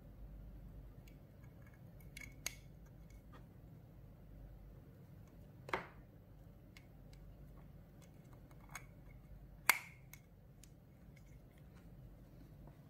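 Scattered small clicks and taps of cable plugs and a small metal-cased audio extractor being handled, as a USB-C power plug is pushed into the box and cables are picked up. A handful of sharp clicks, the loudest just under ten seconds in, over a faint steady hum.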